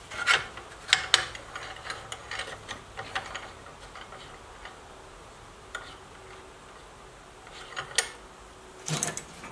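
Forged steel hinge leaves and a round-stock pin clicking and clinking against each other as they are handled and fitted together. There is a cluster of knocks and ticks in the first few seconds, then scattered ticks, with a sharper click about eight seconds in and a couple more near the end.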